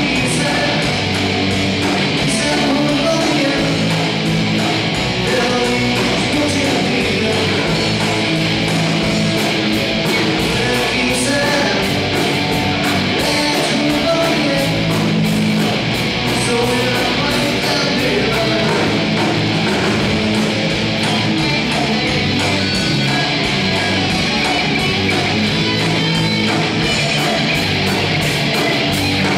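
Live rock band playing, with distorted electric guitars, bass guitar and a drum kit keeping a steady beat.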